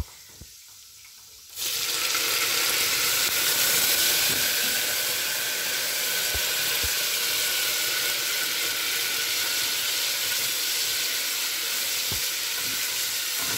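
Vinegar poured into hot oil with golden fried garlic in a stainless steel pot: about one and a half seconds in it hits the oil with a sudden sizzle that keeps going steadily while the pot is stirred with a wooden spoon.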